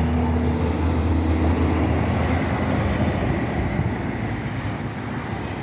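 Toyama chainsaw running while cutting a log. Its steady engine note fades out about a second in, leaving a rough mechanical noise that slowly gets quieter.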